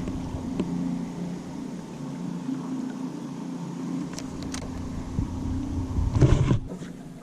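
A small motor running steadily with a low, even hum, and a brief louder rumble about six seconds in.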